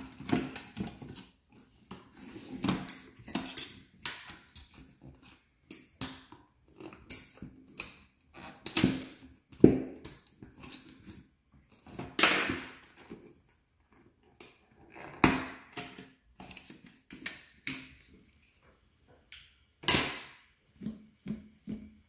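Irregular clicks, knocks and scrapes from handling a car door speaker and its housing, with short quiet gaps between them.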